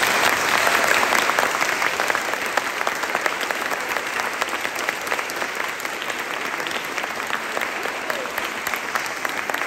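Audience applauding: dense clapping from many hands, loudest in the first couple of seconds, then easing a little.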